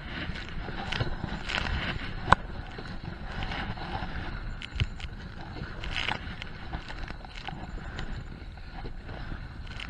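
Choppy water splashing and slapping against the bow of a plastic Dagger kayak as it is paddled, with the paddle blades dipping in and spray pattering. Short sharp clicks and knocks run throughout, the loudest a single knock about two seconds in.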